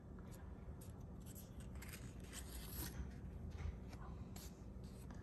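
Transparent plastic film cards and a cardboard card sleeve being handled: a card slid out of its sleeve, then thin cards picked up and shuffled. It is heard as a string of short, irregular scratchy rustles.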